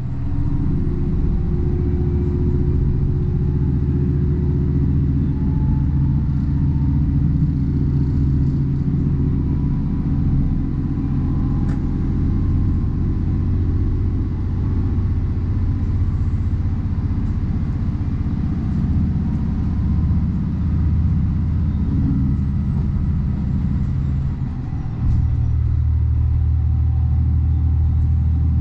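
Diesel railcar's engine running steadily under way, heard from inside the car. Near the end the engine note drops briefly, then comes back louder at a different pitch.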